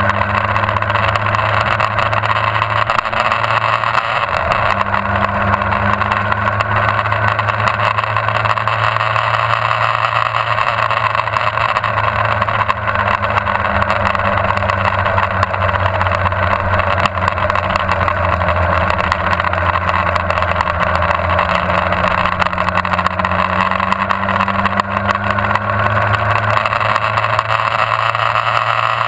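Motorcycle engine running steadily at moderate revs, heard through a camera mounted on the bike, with wind rush. Its pitch rises and falls gently as the rider rolls on and off the throttle.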